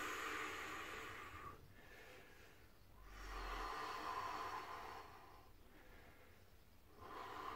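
A man breathing slowly and audibly through a held standing hamstring stretch: three long breaths, each about two seconds, spaced a few seconds apart.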